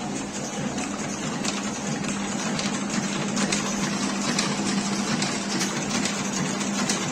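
Automatic gold chain-making machine running as it forms side anchor chain: a steady motor hum with light mechanical clicks from the forming head.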